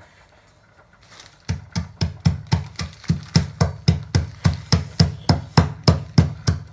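Dry dog kibble being pounded and crushed with a ribbed metal bar on a plastic bag: a steady run of sharp thuds, about four a second, starting about a second and a half in.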